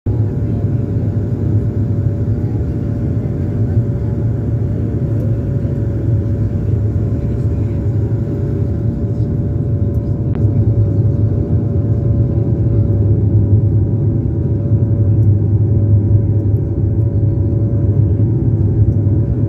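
Steady drone of an airliner's engines heard from inside the cabin: a low rumble with a few steady hum tones above it, growing a little louder past the middle.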